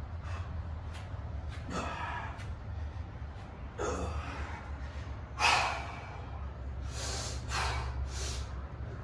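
A weightlifter's forceful breaths, about five sharp inhales and exhales, as he braces under a heavily loaded barbell before a back squat. The loudest breath comes about halfway through.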